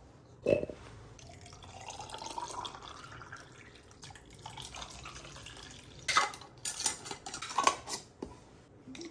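Water poured from a kettle into a glass mason jar packed with carrot sticks, the pouring tone rising as the jar fills. A sharp knock comes about half a second in, and a cluster of clinks and clatter near the end as a metal lid goes onto the jar.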